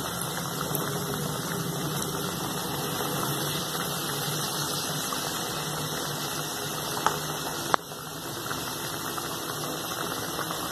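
Malpua batter deep-frying in hot oil in a kadhai: a steady sizzle with fine crackling. There are two sharp clicks a little past the middle.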